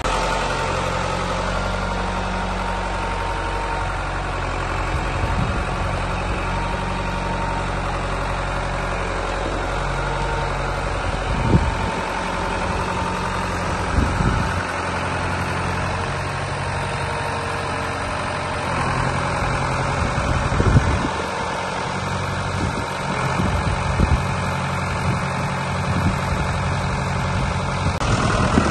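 Ford 6610 tractor's four-cylinder diesel engine running while it moves with a vacuum tanker hitched behind, its engine note shifting up and down a few times. Several short knocks come through the engine sound, the clearest about a third of the way in, just after that, and about three-quarters through.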